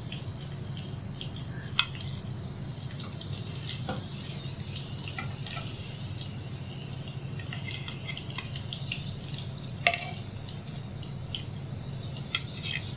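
Egg biscuit pitha deep-frying in hot oil: a steady sizzle with many small scattered crackles and pops over a low hum. Two sharper clicks stand out, about two seconds in and near ten seconds.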